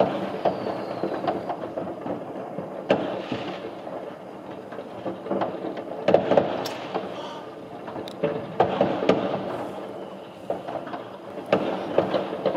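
Consumer fireworks going off all over a city: a continuous distant rumble of overlapping bangs and crackles, with sharper single bangs standing out, the loudest about six seconds in.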